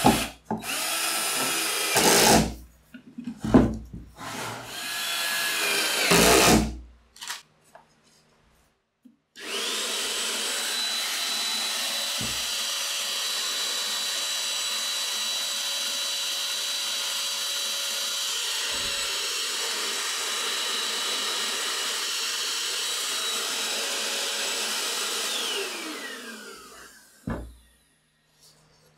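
Cordless drill driving screws into plywood in several short bursts in the first seven seconds. After a pause, a steady high motor whine runs for about sixteen seconds and then winds down, falling in pitch near the end.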